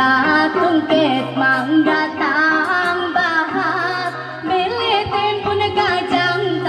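A karungut, Dayak sung poetry, performed by a woman in a long, ornamented vocal line with wavering pitch over instrumental accompaniment with a repeating bass line.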